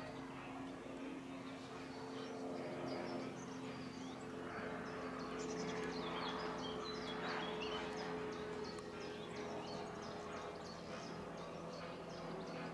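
Small birds chirping rapidly over a steady low mechanical hum.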